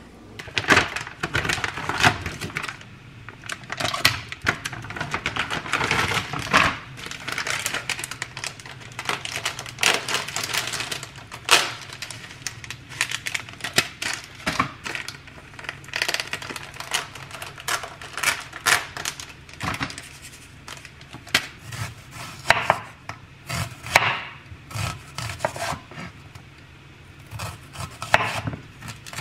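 Vegetable prep: a chef's knife slicing onion on a bamboo cutting board, with irregular knocks of the blade on the wood. Between the cuts come the rustle and clatter of vegetables being handled.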